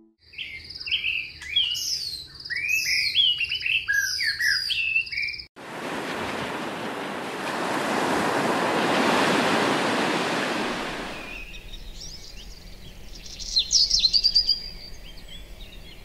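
Several birds singing in quick chirps that rise and fall, for about five seconds. Then sea waves wash onto a shore in a rushing surf that swells and fades over about six seconds. After that comes quieter birdsong over a low hum, with a quick burst of chirps near the end.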